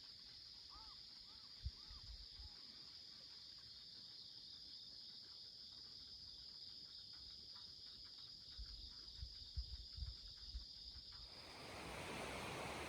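Insects chirring in a steady high-pitched chorus, with a few faint chirps in the first couple of seconds and some low bumps. About eleven seconds in, a broad steady hiss takes over and the insect sound drops out.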